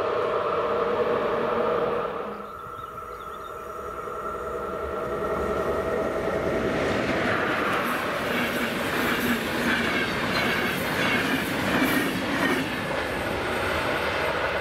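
Electric locomotive hauling passenger coaches approaches, passes close by and draws away, its wheels clattering rhythmically over the rail joints. Before that, a steady hum with a few held tones cuts off abruptly about two seconds in.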